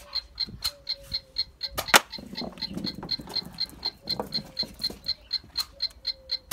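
Electronic Nerf target board's timer ticking at about four beeps a second during a timed round, with one sharp knock about two seconds in.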